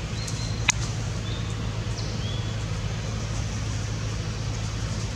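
Steady low mechanical hum, like a distant engine running, with a few short high chirps and one sharp click less than a second in.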